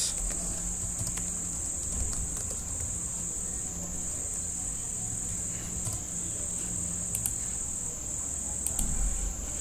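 A steady, high-pitched whine held at one pitch, with a low hum beneath it and a few faint keyboard and mouse clicks.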